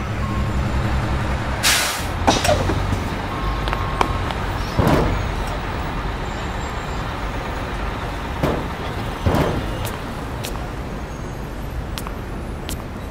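Stock sound effect of a bus engine running steadily low, with several short air-brake hisses. The first and sharpest comes a little under two seconds in.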